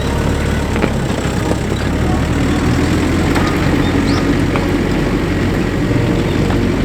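Jeep Wrangler Rubicon's engine running steadily with a low, even hum.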